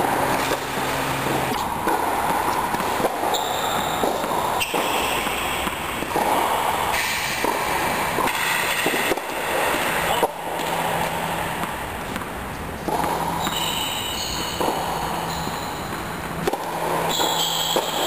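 Tennis balls being struck by rackets and bouncing on an indoor court: sharp, irregular pops echoing under the dome roof, over a steady background noise.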